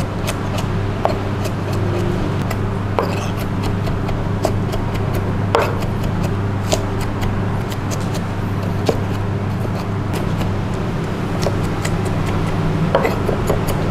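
Cleaver chopping raw aromatics on a wooden log chopping board: irregular knocks of the blade on the wood, over a steady low hum.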